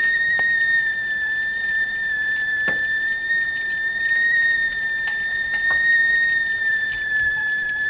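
Stovetop tea kettle whistling at the boil: a steady, high whistle that wavers slightly in pitch.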